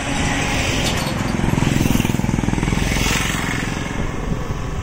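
A motor vehicle passes close by on the highway: its engine swells to a peak about two seconds in, then fades.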